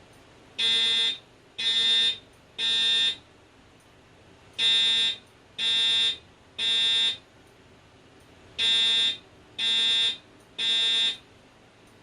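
Fire alarm voice-evacuation system sounding the temporal-three evacuation signal: a buzzy alarm tone in three groups of three short blasts, each group followed by a brief pause. This is the standard alert that precedes the recorded evacuation message.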